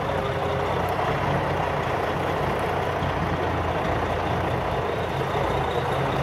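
Semi-truck tractor's diesel engine running steadily at low speed while manoeuvring, heard from inside the cab as an even, low drone.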